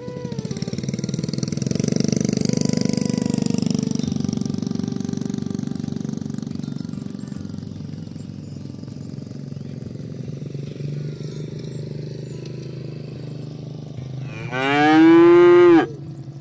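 Cattle mooing: a long, low moo in the first few seconds, fading into low, steady lowing. Near the end comes one loud, higher-pitched moo of about a second that falls in pitch.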